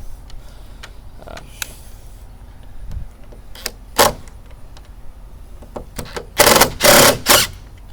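Cordless power driver running in two short bursts, each about half a second, driving or backing out screws in the wooden gate's doorknob fitting, after a couple of sharp clicks.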